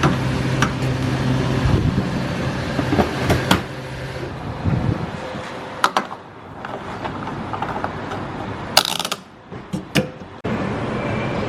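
Petrol pump refuelling a car: a steady low hum for the first few seconds, then scattered mechanical clicks and clunks, with a loud short clatter about nine seconds in.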